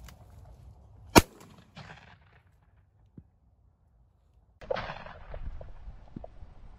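A single shotgun blast from a 12-gauge Stoeger M3000 fired at a crow in flight, a sharp loud crack about a second in. From a little past halfway there is a stretch of rustling and small knocks.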